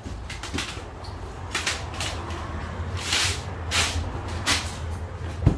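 Handling noises from sign-fitting work: a run of short scrapes and rustles, then a sharp knock near the end, over a steady low hum.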